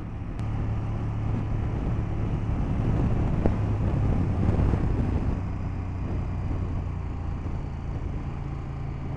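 KTM 1290 Super Duke GT's V-twin engine running steadily at an even cruising pace, with wind and road noise.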